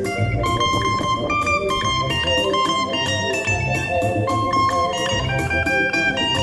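Music with guitar-like plucked strings over a steady beat and bass line.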